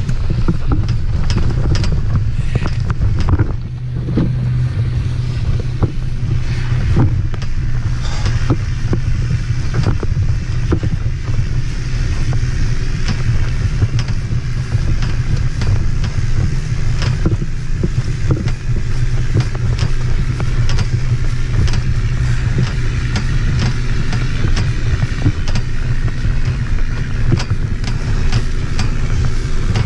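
Wind buffeting the microphone of a camera mounted on a grounded hang glider's base tube: a steady low rumble with frequent small knocks and rattles.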